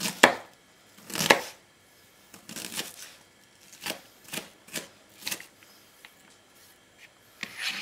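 Kitchen knife chopping onion into cubes on a plastic cutting board: separate sharp strokes at an uneven pace, roughly one a second, with a quicker cluster in the middle.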